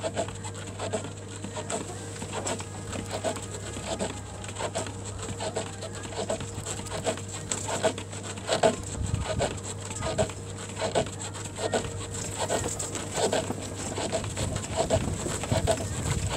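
Quick, rhythmic taps and scuffs of a person's feet on a floor mat during mountain climbers, over a steady low hum.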